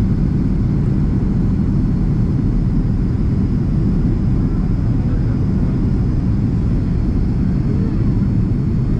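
Boeing 767-300ER cabin noise heard from a seat over the wing: a steady low roar of the jet engines and airflow on the descent to landing, unchanging throughout.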